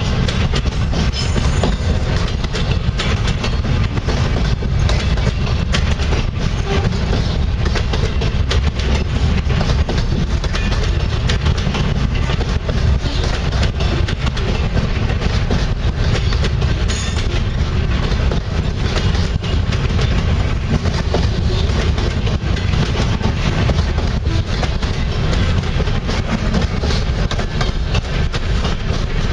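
Freight cars of a passing train rolling by close at speed: steel wheels clacking over rail joints in a steady, loud rumble, with frequent metallic clicks and rattles.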